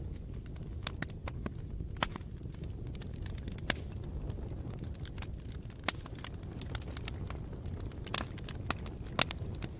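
Campfire burning: a low steady rumble with irregular sharp pops and crackles of burning wood.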